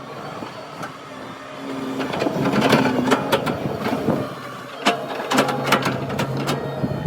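Excavator working: its engine runs steadily and grows louder about two seconds in, with a string of sharp clanks and knocks as the bucket digs into the ground.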